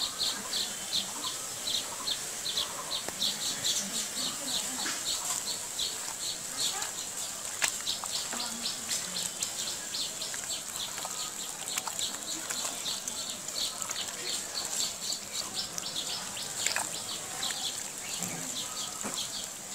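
A bird chirping over and over, short high notes about three to four a second, over a steady high hiss.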